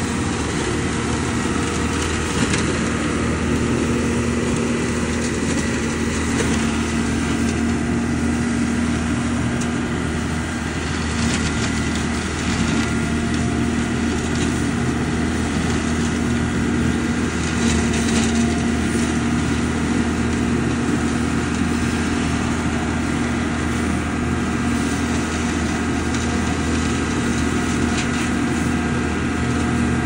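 ODB LCT650 leaf vacuum running steadily at working speed, its engine and fan droning as raked dry leaves are sucked up the intake hose, with scattered crackles.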